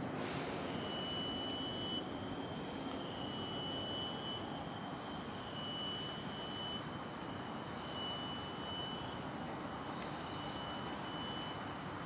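Forest insects keeping up a high, thin steady whine that swells and breaks off in rounds of about a second.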